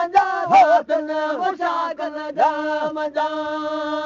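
Male voice chanting a Sindhi mawlud, a devotional song, with short bending phrases at first and then a long steady held note.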